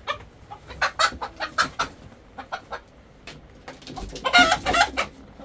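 Chickens clucking in a string of short clucks, with a louder, longer call about four seconds in.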